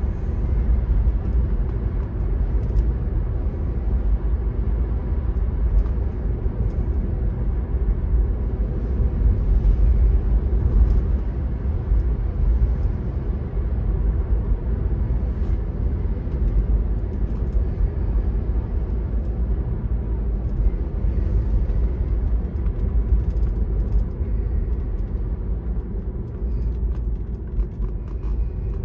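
Car driving on wet pavement, heard from inside the cabin: a steady low rumble of tyre and engine noise.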